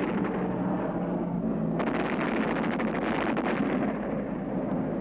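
Douglas A-1 Skyraider's four 20 mm wing cannons firing in a rapid stream over its running piston engine, heard from the cockpit on a low strafing pass. The racket turns harsher about two seconds in.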